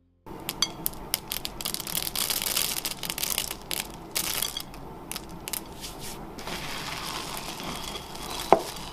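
Chocolate chips being stirred into stiff cookie dough in a mixing bowl: a crunchy, clicking scrape that starts suddenly. A single sharp knock near the end is the loudest moment.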